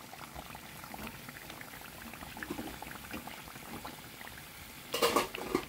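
Battered banana fritters deep-frying in hot oil in a pan, sizzling with a steady fine crackle. About five seconds in there is a short, much louder burst, when chopsticks are in the pan moving the pieces.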